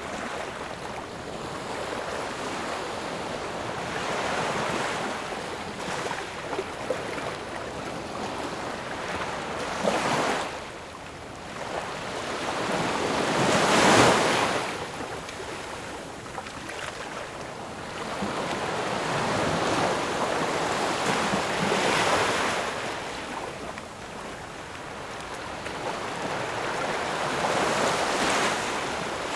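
Waves washing in as a steady hiss that swells and eases every few seconds, the loudest surge about halfway through.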